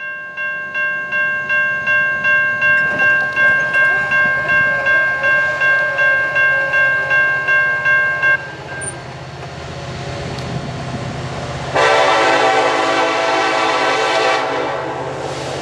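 A grade-crossing bell dings about twice a second and stops abruptly about eight seconds in. Under it is the low, steady rumble of an EMD SD70ACe diesel locomotive working hard to pull a train up a grade. About twelve seconds in, the locomotive's horn sounds one long blast of nearly three seconds.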